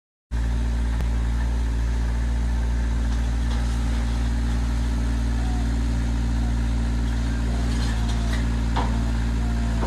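Vermeer mini skid steer's engine running steadily, with a couple of light knocks near the end.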